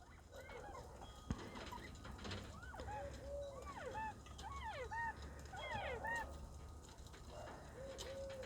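Young northern bobwhite quail giving many faint, short whistled calls, each a quick rising-and-falling note, several birds overlapping; the keeper hears them as happy, contented sounds.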